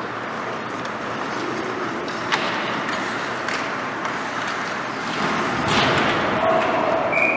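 Ice hockey play: skates scraping the ice, with sharp clacks of stick and puck a little over two seconds in and again at three and a half. A louder stretch of skate and stick noise comes as players scramble at the goal crease, and a short high whistle sounds near the end as play stops.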